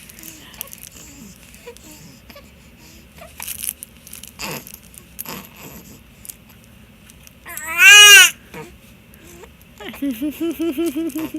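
Infant crying out once, loud and high, about eight seconds in, the pitch rising and then falling, and then fussing in a quick run of short whimpers near the end. This is the fussing that comes with his hiccups.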